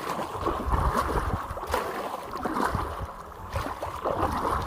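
Double-bladed paddle strokes splashing into river current beside an inflatable packraft, over rushing water, with a repeated slap and swish as each blade dips in.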